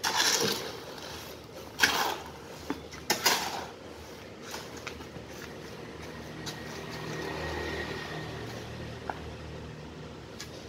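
A hoe scraping and slapping through wet cement mortar in a steel wheelbarrow, three strokes in the first few seconds. In the second half, a low steady motor-like hum swells and fades.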